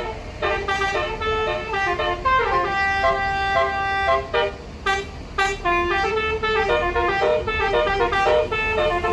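Basuri telolet horn on a tour bus playing a quick multi-note tune, its pitch stepping from note to note with a few held tones and one sliding note, over a low engine rumble.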